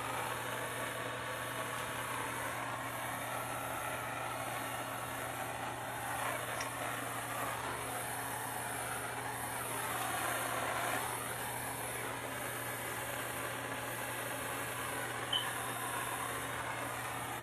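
Handheld gas soldering torch burning with a steady hiss while it heats a copper sweat fitting so the solder flows into the joint.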